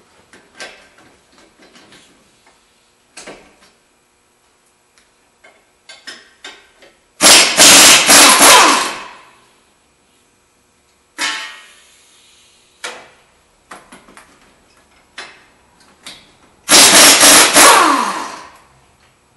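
Pneumatic impact wrench hammering loose the strut-to-knuckle nuts: two loud bursts of about two seconds each, about ten seconds apart, the second falling in pitch as it stops. Light clinks and knocks of tools between.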